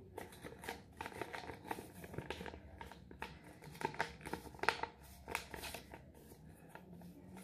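Sheet of white paper rustling and crinkling in the hands as it is folded and creased, an irregular string of short crisp crackles, a few louder ones about four to five seconds in.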